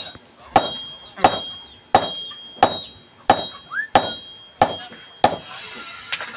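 Blacksmith's hammer striking the iron tip of an agricultural digging tool in a steady rhythm, about one and a half ringing metallic blows a second, as the end is dressed smooth. The blows stop a little past five seconds in.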